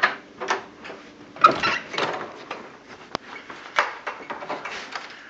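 Irregular footsteps and knocks from a handheld camera being carried, with one sharp click a little after three seconds in.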